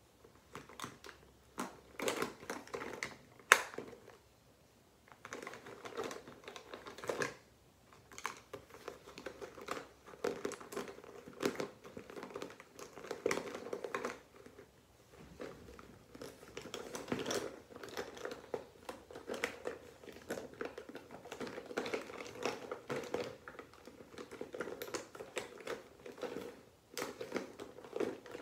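Rummaging through a clear plastic zippered makeup bag: irregular crinkling of the plastic and small clicks and knocks of cosmetics being shifted around, with one sharper click about three and a half seconds in.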